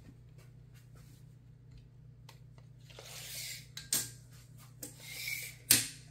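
A large sheet of 32-count Lugana evenweave fabric rustling and swishing as it is unfolded and smoothed flat by hand, with a few small clicks. A single sharp thump comes near the end and is the loudest sound.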